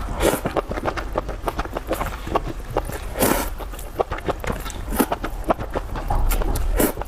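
Close-miked eating sounds: a fast, uneven run of wet chewing and lip-smacking clicks, broken by three longer slurping sounds.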